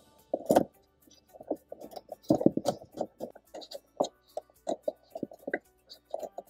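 Small ratchet driver clicking in short, irregular runs as it backs out the screws of a Tesla Model 3 stock dash speaker.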